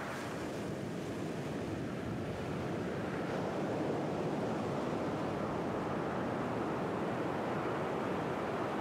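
Ocean surf washing onto a sandy beach and rocks, a steady wash of waves that grows slightly louder.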